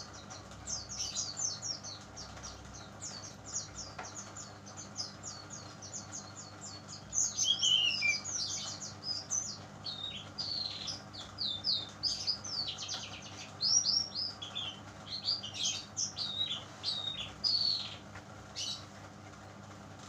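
Juvenile brown-chested jungle flycatcher singing: a fast, continuous run of short, high downward-sweeping notes. About seven seconds in it grows louder with some longer descending whistles, then goes on in more broken phrases.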